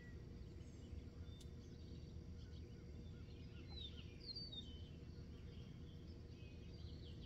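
Faint outdoor background: a steady low rumble with scattered, faint bird chirps, most of them a few seconds in.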